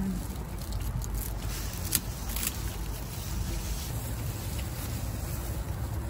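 Steady low background rumble, with a single sharp click about two seconds in.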